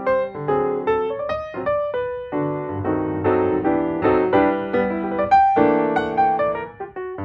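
Background piano music: a sequence of struck notes and sustained chords.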